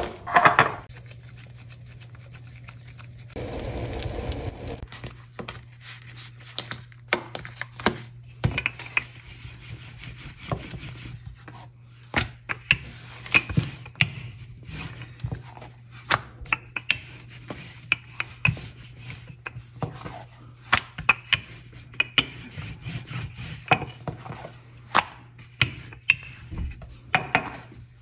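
Wooden rolling pin working roti dough on a granite countertop: irregular knocks and clacks of the pin and hands on the stone, between stretches of rubbing as the dough is rolled and floured.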